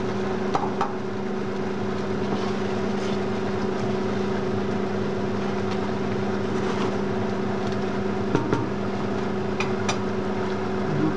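A steady kitchen-appliance hum with two held tones over a soft even hiss, and a few light clicks and knocks from a utensil working a steel pot of sauce.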